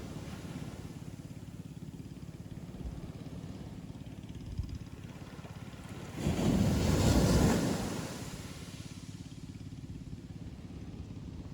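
Ocean surf on a beach: a steady low rumble of breaking water, with one wave crashing about six seconds in, louder for about two seconds before it washes out.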